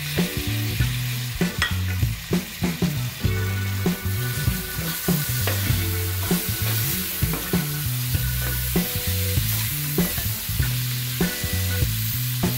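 Freshly added chopped tomatoes and green chillies sizzling in hot oil and onion masala in a nonstick kadai, stirred with a steel ladle, with small knocks of the ladle against the pan. Background music with a low repeating bass line runs underneath.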